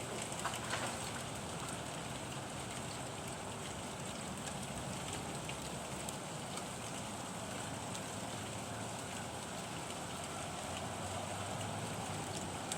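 Steady rain falling, with scattered sharp taps.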